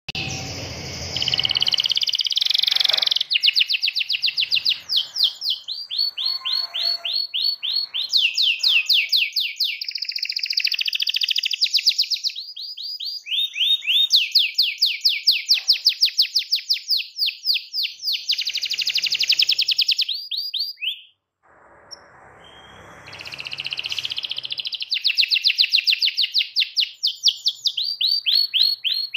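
Domestic canary singing a long rolling song: fast trills of rapidly repeated notes, each run holding one pitch before switching to the next, with a brief break about three-quarters of the way through.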